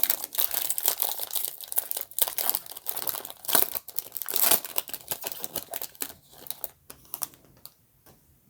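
A 2020 Bowman Draft trading card pack wrapper being torn open and crinkled in the hands, with a steady run of crackles that dies away near the end.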